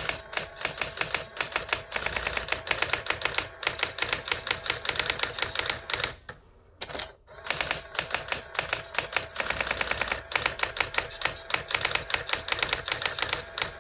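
Brother AX-20 daisy-wheel electronic typewriter printing text fed over serial: a rapid, even run of sharp character strikes, with one short pause about six and a half seconds in.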